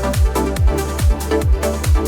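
Electronic dance music: a steady kick drum beating about twice a second under synth chords, with no vocals.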